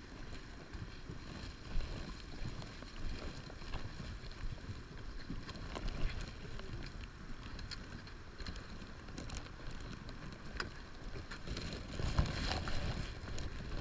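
Outdoor wind rumbling on a chest-mounted action camera's microphone, with scattered light clicks and rustles from clothing and handling, a little louder near the end.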